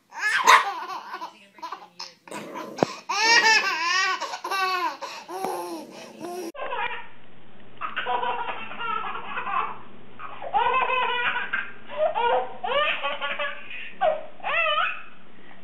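Babies laughing hard in repeated bursts of giggles and belly laughs. About six and a half seconds in it switches to a second baby laughing the same way.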